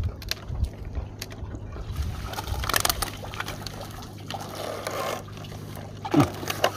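Water splashing and trickling over a steady low hum, with a brief loud sound sliding down in pitch near the end.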